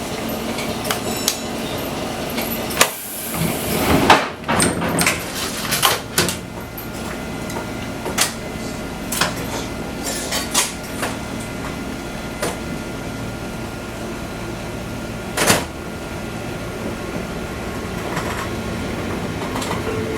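Scattered clicks and knocks in the cab of a Fukui Railway 200-series train over a steady hum, with a cluster of knocks about three to six seconds in and a sharp one about fifteen seconds in.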